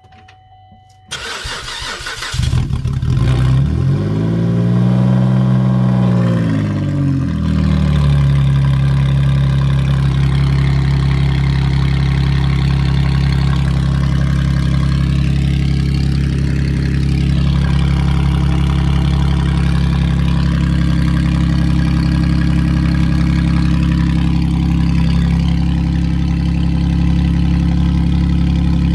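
Car engine cranking briefly and catching about two seconds in, revved up and back down once, then settling into a steady, loud idle. It now runs with the clogged catalytic converter disconnected from the exhaust.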